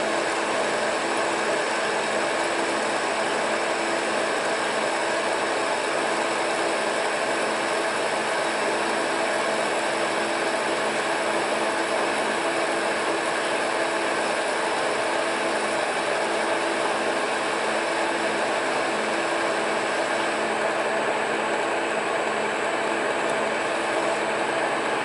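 Monarch lathe running steadily under a 30-thousandths cut on a shotgun choke: an even machine whir with a steady gear whine.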